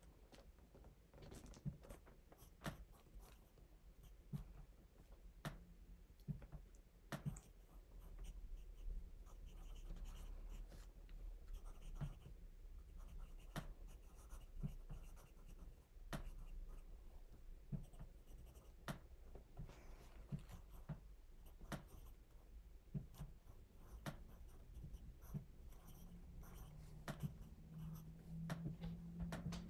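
Pencil writing on paper: faint scratching with scattered light taps of the strokes. A low steady hum comes in near the end.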